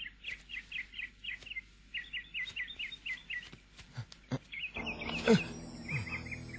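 Small birds chirping in quick repeated trills. A few sharp clicks come near the middle, then a low steady hum sets in with one quick falling sweep, the loudest moment.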